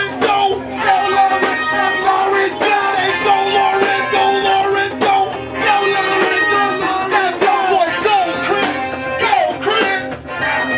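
R&B band music with electric guitar and singing.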